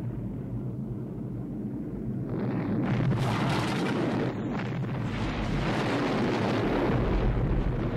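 Film soundtrack of a large explosion: a low rumble that swells about two seconds in into a loud, continuing roar of blast and fire.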